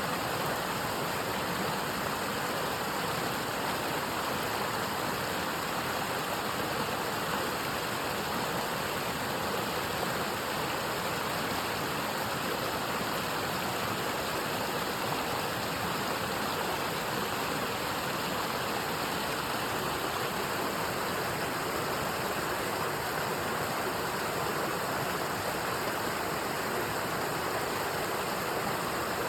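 Water flowing and splashing between rocks in a stream, a steady even rush.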